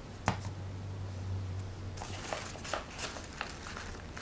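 A sharp click just after the start, then paper rustling and crinkling from about two seconds in as hands handle a folded paper bag and press a glitter cardstock circle onto it.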